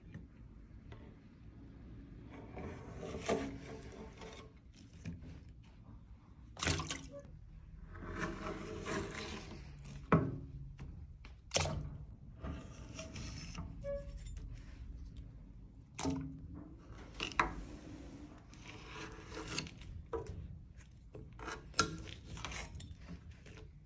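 Steel scraper scraping thick built-up candle wax off the edge of a wax vat, in a series of uneven scraping strokes with several sharp clacks between them.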